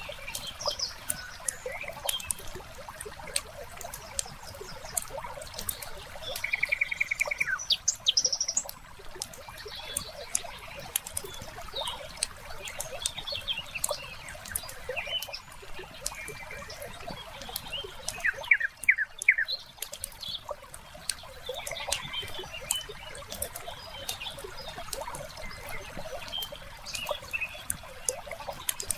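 Wood fire crackling with scattered sharp pops throughout, mixed with birds chirping: a rapid trill about seven seconds in and a short cluster of calls a little past the middle, over a trickle of water.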